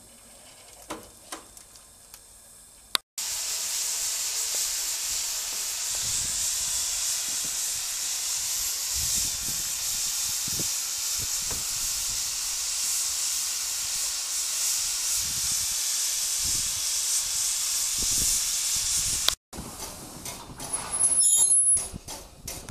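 Steam hissing steadily and loudly from a small narrow-gauge steam tank locomotive, starting and stopping abruptly.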